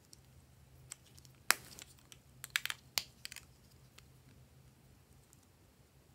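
A handful of sharp plastic clicks and taps as a plastic spatula knocks and scrapes against a small plastic cosmetic jar, the loudest about a second and a half in with a short scratch after it and a quick cluster of ticks a second later.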